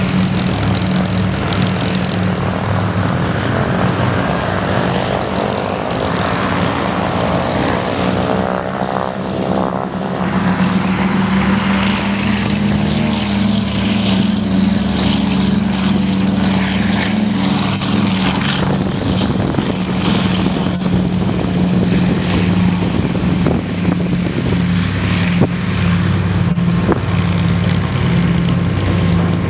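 Twin Pratt & Whitney R-1830 radial engines of C-47A Skytrain transport planes running at full take-off power, a steady propeller drone as the planes roll down the runway and climb away. A sweeping, phasing change in the drone comes about a third of the way in as a plane passes.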